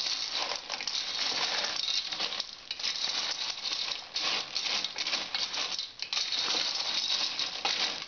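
Periwinkle shells rattling and clattering against a stainless steel pot as they are stirred with a wooden spoon, in several stirring bouts with brief pauses between them.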